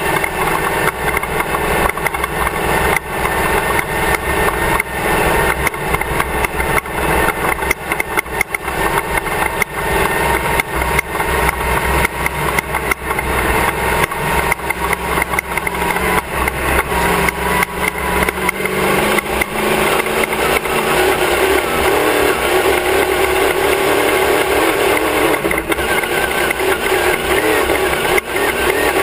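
Class 1 off-road race car's engine running hard at racing speed, heard from a camera mounted on the back of the car. Constant knocks and rattles from the chassis jolting over rough ground run through it.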